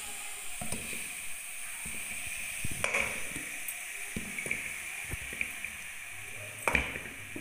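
Raw chicken drumsticks being set one after another into a non-stick frying pan: soft knocks and plops, the loudest about three seconds in and near the end, over a steady hiss.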